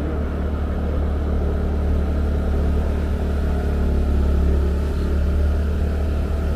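Motorcycle engine running steadily at cruising speed while riding, as a constant low drone with wind and road noise over it.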